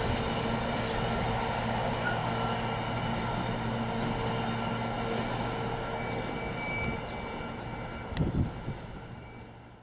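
Container freight train receding down the line, a steady low drone with wheel and rail noise that fades gradually into the distance. A brief low rumble comes about eight seconds in.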